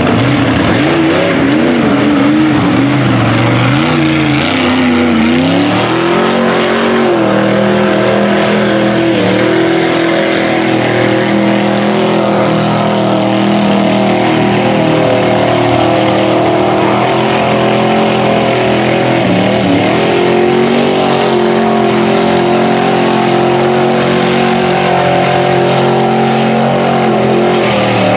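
Engine of a full-size Ford Bronco mud truck running hard at high revs as it ploughs through a deep mud pit. Its pitch wavers up and down for the first few seconds, then holds high and steady, with a brief dip about twenty seconds in.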